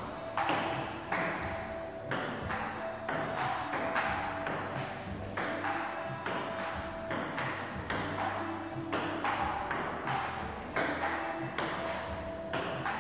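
Table tennis ball in a long rally, clicking sharply as it is struck by the paddles and bounces on the table, in a quick, uneven run of clicks.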